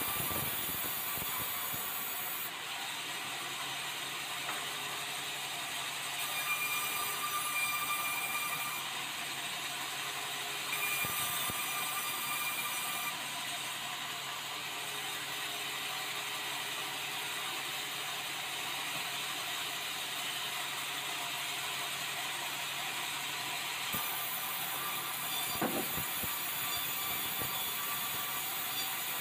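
Band sawmill running steadily, its blade cutting red meranti boards, with passes of a few seconds that bring a louder high whine. There is a sharp knock near the end.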